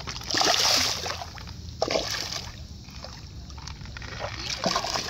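Water splashing as a released carp thrashes free of a landing net and swims off: one loud splash about half a second in, then smaller splashes.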